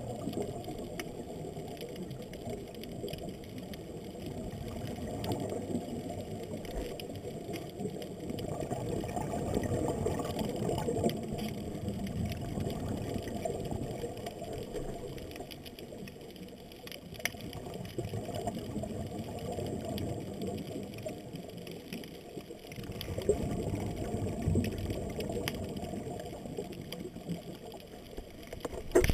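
Muffled underwater sound through a camera's waterproof housing: scuba breathing and exhaled bubbles, a low rumble that swells and fades every few seconds.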